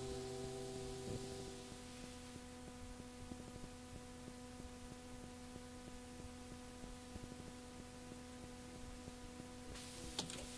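The last notes of an acoustic song die away in the first second or two, leaving a faint steady electrical hum and hiss on the cassette recording. Near the end the hiss rises, with a few clicks.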